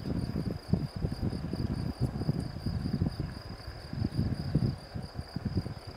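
Sikorsky S-70i Black Hawk helicopter lifting off from the runway: its rotor noise is an uneven low rumble. Over it runs a steady high-pitched insect trill from crickets in the grass.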